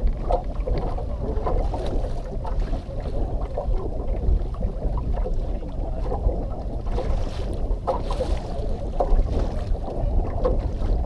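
Wind buffeting the microphone over small waves lapping against a small fishing boat's hull, a steady low rumble with a few light knocks on the boat.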